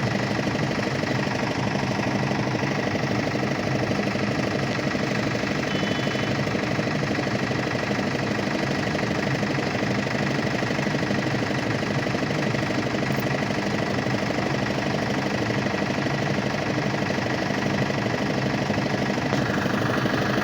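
Engine of a road-repair machine that mixes stone chips with binder, running steadily.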